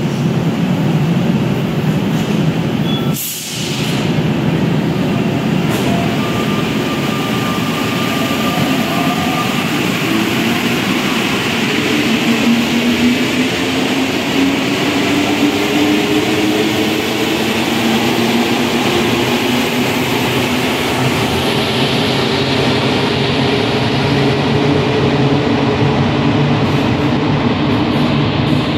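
NS-93 rubber-tyred metro train pulling out of an underground station, with a steady rumble and rush from the passing cars. From about twelve seconds in, the traction motors' whine rises in pitch as the train gathers speed.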